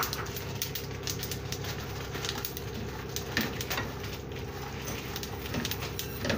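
Wooden spatula stirring nuts and seeds roasting in an aluminium karahi: the pieces rattle and scrape against the metal pan in short strokes, with a few louder scrapes in the second half, over a steady hum.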